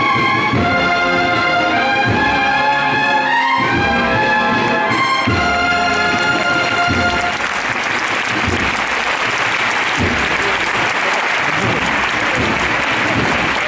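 Brass band playing a processional march with a beat underneath, moving through held brass chords until the music stops about seven seconds in. Crowd applause follows.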